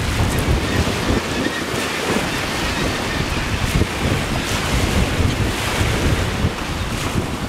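Small sea waves breaking and washing on a pebble beach, with wind buffeting the microphone in a steady low rumble.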